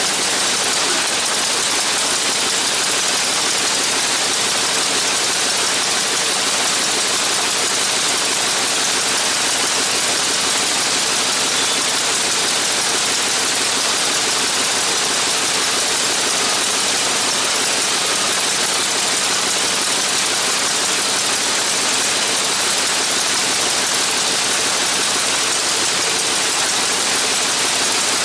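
Radial engine of a Spirit of St. Louis replica monoplane running steadily on the ground during a pre-flight engine run, with a steady rushing noise over the faint engine tone.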